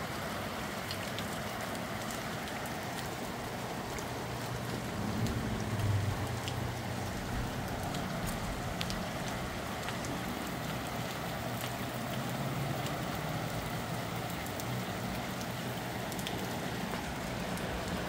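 Steady rain falling in gusty wind, with scattered drops ticking close by. A low rumble swells briefly about five seconds in.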